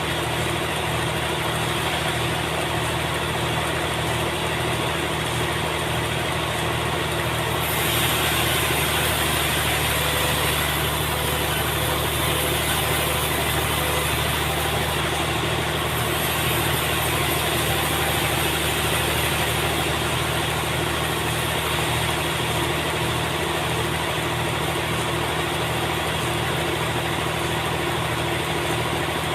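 Sawmill engine running steadily at a constant speed, with a rhythmic low pulse. About a third of the way in, a higher hiss grows louder and stays.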